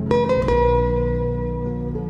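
Calm instrumental background music of plucked notes. A note is struck just after the start and another about half a second in, and both ring on steadily.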